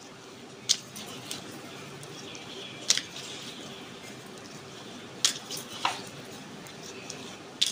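Rolling pin working samosa dough thin on a board, a soft rolling rub broken by about five short sharp knocks and clicks of the pin and board.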